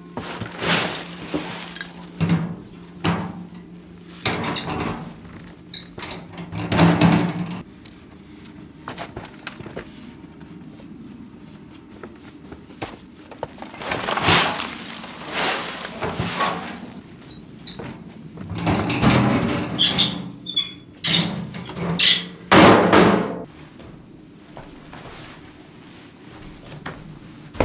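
Hand demolition work: repeated rough scraping strokes, each about a second long, coming in irregular bunches, with faint short high squeaks in between.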